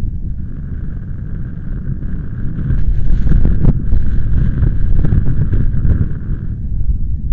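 Strong gusty wind buffeting the microphone with a heavy rumble, growing louder about a third of the way in and easing near the end.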